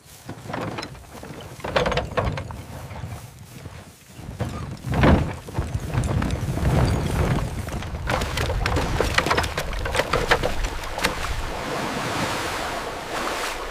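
Wooden-wheeled wagon and cannon carriage moving over rough, muddy ground: irregular thuds, knocks and clanks, with a heavy thump about five seconds in and a steady rushing noise through the second half.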